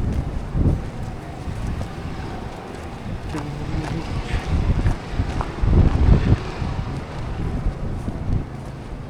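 Blizzard wind buffeting the microphone in an uneven low rumble, with a few louder gusts or dull thumps about six seconds in.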